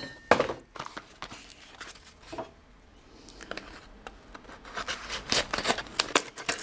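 Handling of a small cardboard box: a knock just after the start, soft rustling, then a quick run of crackling, scraping rasps near the end as its flaps are worked open.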